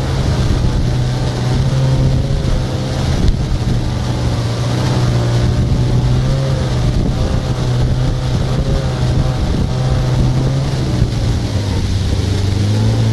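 An engine running at a steady speed: a constant low hum with wavering higher tones above it.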